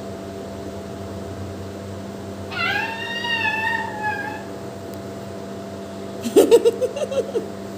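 A kitten meowing, one long rising-and-falling call about two and a half seconds in, with a shorter tail. Near the end a short, choppy burst of a woman's laughter, louder than the meow, over a steady electrical hum.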